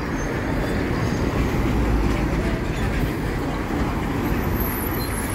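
Diesel city bus engine running close by in street traffic, a steady low rumble.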